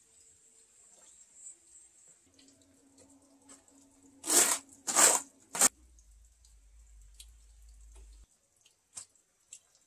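Bricklaying in an ondol firebox pit: three short, loud gritty scrapes about four to six seconds in, as bricks are worked into mortar, with faint knocks and ticks of brick and grit around them.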